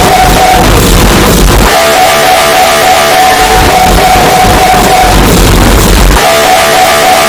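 MRI scanner buzzing at a steady high pitch, broken twice by about a second of low pounding, boosted until it is very loud and heavily distorted.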